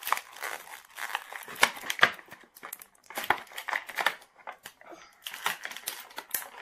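Toy packaging crinkling and rustling in quick, irregular crackles as it is handled and pulled open.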